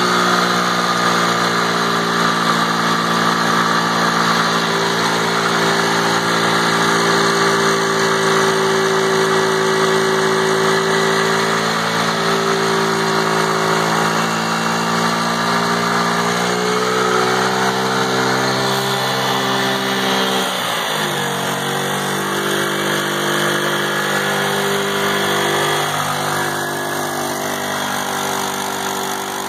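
A 50cc youth ATV engine held at high revs in a stationary burnout, its rear tyre spinning on wet, lubed ground. About two-thirds of the way through, the revs drop sharply and the engine settles at a lower, steady speed.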